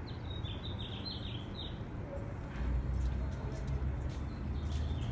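Small bird chirping: a quick run of short high notes in the first two seconds and a few more near the end. Under it runs a low steady rumble that grows louder about two and a half seconds in.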